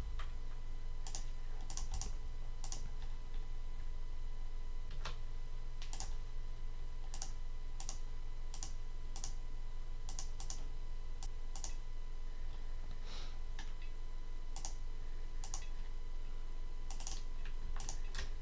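Scattered clicks of a computer mouse, singly and in quick pairs about once a second, over a steady low hum.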